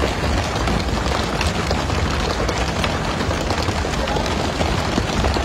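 Tuna thudding and flapping on a boat deck as they are pole-caught and swung aboard: a dense, rapid clatter of knocks over a steady low rumble and rushing sea.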